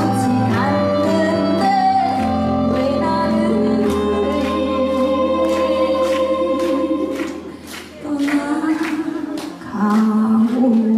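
A woman singing a slow ballad through a handheld microphone over a backing track, holding long notes. The music drops away briefly about three-quarters of the way through, then she comes back in on a long held note with vibrato.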